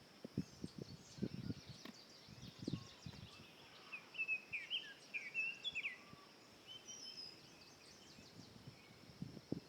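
Small birds chirping in short, quick rising and falling calls, loudest in the middle, over a steady high drone typical of insects. A few soft knocks come in the first few seconds and again near the end.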